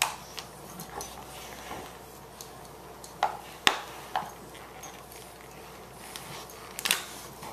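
Two boxer dogs tussling over a plush toy: a scattering of short, sharp clicks and clinks, about seven in all, the loudest a little past halfway and another near the end.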